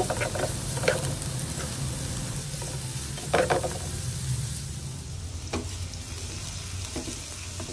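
Julienned ginger sizzling in hot oil in a frying pan, stirred with a slotted spatula that scrapes and knocks against the pan now and then.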